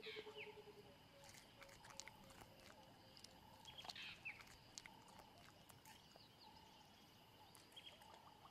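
Near silence: faint savanna ambience, with a rapid low trill that fades out within the first second, a few short high chirps near the start and about four seconds in, and scattered faint clicks.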